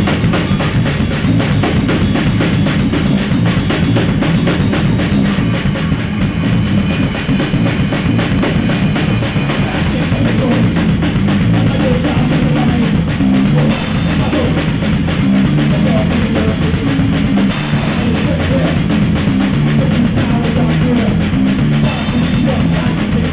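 Live metal band playing loud, fast music dominated by the drum kit, with rapid bass drum and snare strikes and cymbal crashes coming in several times.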